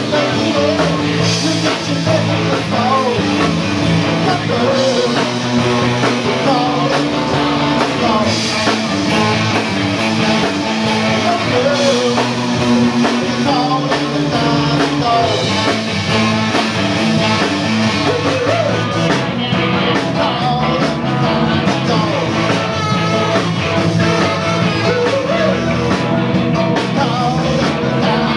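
Live rock band playing: a man sings into a microphone over electric guitars and bass guitar, the music loud and continuous.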